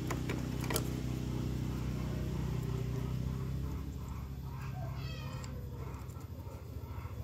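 A few sharp clicks of plastic and metal parts being handled while the carburettor and air box of a Yamaha Jupiter MX are refitted, over a steady low drone. A short animal cry comes about five seconds in.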